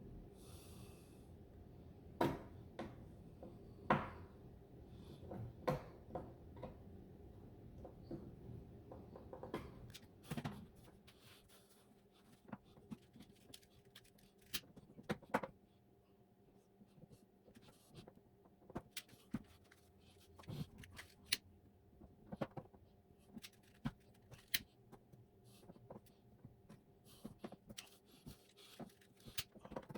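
Scattered light clicks and taps of hands working on a plastic cover panel, at irregular intervals. A low steady rumble runs under them for the first ten seconds or so, then stops.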